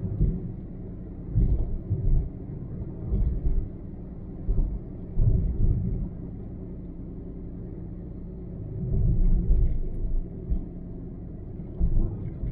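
Car driving along a highway at road speed: a steady low rumble of engine and road noise, with irregular louder low surges every second or two.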